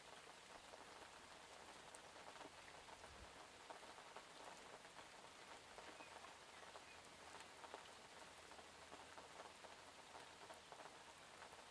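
Rain falling steadily: a faint, dense patter of many small raindrops hitting a surface.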